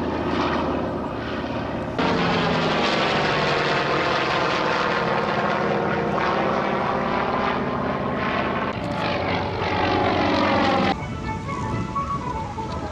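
Piston-engined propeller aircraft flying past, a dense engine drone whose pitch bends as it passes. The sound changes abruptly about two seconds in and again near the end.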